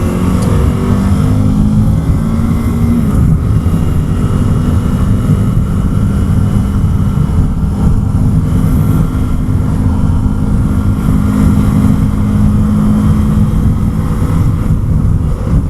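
2016 KTM Duke 390 single-cylinder engine running steadily at highway cruising speed, with heavy wind noise rushing over the microphone. The engine note steps down once about three seconds in, then holds.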